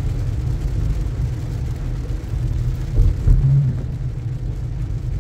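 Road noise inside a moving car on a wet road in heavy rain: a steady low rumble of engine and tyres, with a couple of louder low thumps about three seconds in.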